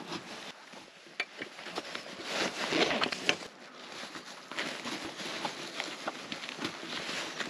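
Black nylon webbing strap being handled and pulled through a metal buckle on a waterproof dry bag, with coated fabric rustling and small sharp clicks. The rustling is loudest about two to three seconds in.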